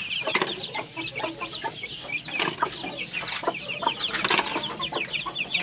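A brood of newly hatched chicks peeping continuously: many short, falling cheeps overlapping. Scattered sharp clicks and rustles of eggshells and debris being picked up by hand.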